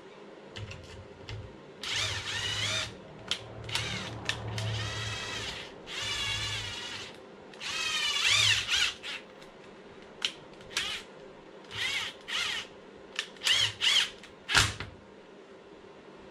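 Handheld cordless driver running in a string of short trigger bursts, its motor whine rising and falling in pitch, as it drives screws into an RC car's chassis to fasten the receiver box and tray.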